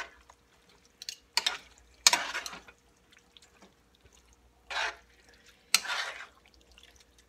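Metal spoon stirring a thick, wet mixture of ground beef, crushed tomatoes, black beans and corn in a skillet, in several short separate strokes with quiet between them.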